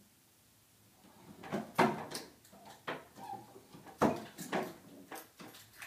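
A run of irregular knocks and clatters, about seven sharp ones, the loudest about two seconds in and again about four seconds in.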